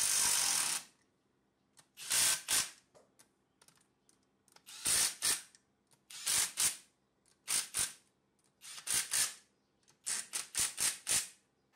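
Small cordless power screwdriver driving the bolts of a two-stroke engine's intake manifold: one run of about a second at the start, then short trigger bursts in twos and threes as each bolt is snugged down.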